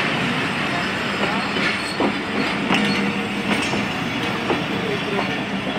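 Pakistan Railways passenger coaches rolling past at low speed: a steady rumble with wheels clacking over rail joints about once a second and a few brief wheel squeals.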